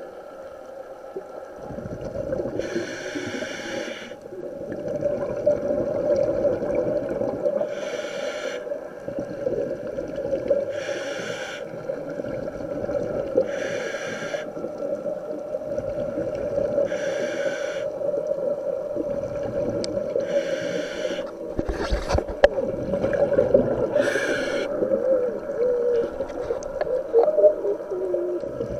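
Scuba diver breathing through a regulator underwater: exhaled bubbles rush out about every three seconds over a steady low hum. There are a few sharp clicks a little after the middle.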